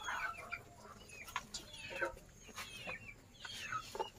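Kampung chickens, young birds among them, peeping in many short falling chirps and giving a few low clucks as they feed, with scattered sharp taps.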